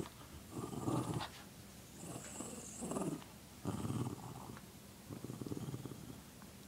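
Small dog growling in several short, rumbling bouts while tugging on a rope toy: a play growl during tug-of-war.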